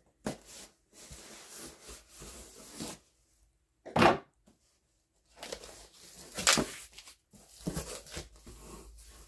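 A cardboard case of adult diapers being torn open and its packaging handled: stretches of tearing and rustling, with two louder sharp noises about four and six and a half seconds in.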